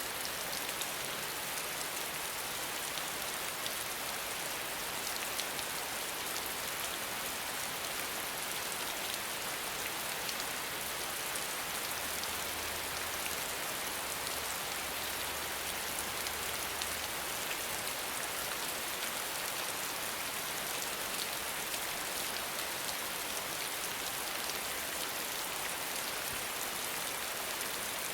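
Steady rain falling: a dense, even hiss with scattered ticks of individual drops.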